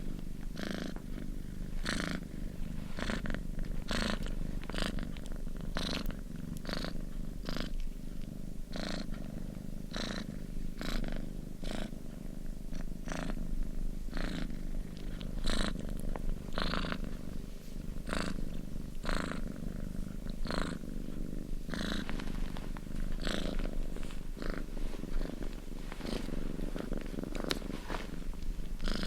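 Domestic cat purring steadily: a continuous low rumble that swells in a regular rhythm with each breath in and out, about once or twice a second.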